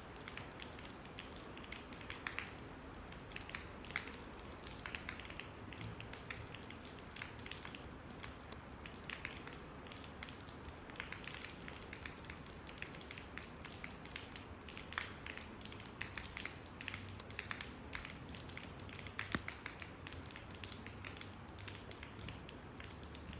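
Rain falling, an even hiss dotted all through with irregular sharp drop ticks.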